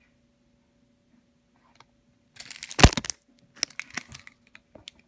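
Packaging being handled: a burst of crinkling and rustling about two and a half seconds in with one loud thump, then scattered clicks and crinkles.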